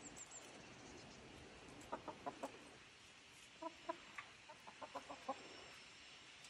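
Chickens clucking softly: a few short calls about two seconds in, then another run of them from about three and a half to five seconds in.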